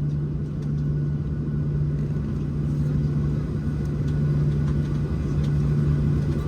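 Steady low rumble and hum in the cabin of a Boeing 737-700 with its CFM56-7B engines running at low power, heard from a window seat.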